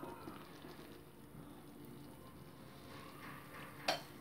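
Tomato and chilli masala simmering softly in a kadai, a faint bubbling. One sharp click near the end.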